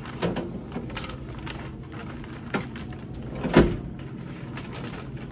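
Clatter at a store checkout register: a few sharp knocks and clicks as cash is handled at the till, the loudest about three and a half seconds in.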